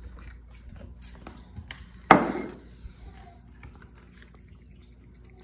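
A single loud knock or thump about two seconds in that dies away over half a second, with faint room noise around it.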